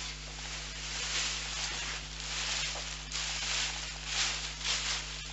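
Large plastic bag rustling and crinkling in irregular surges as it is handled and gear is stuffed into it, over a steady low hum.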